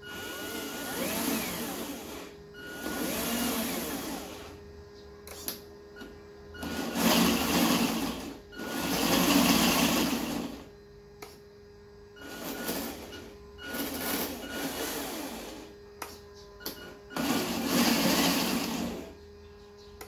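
RC truck's electric drive motor and gearbox spinning up and winding down in about seven short runs of one to two seconds each, driven from the transmitter sticks to test the new radio. The pitch rises and falls within each run.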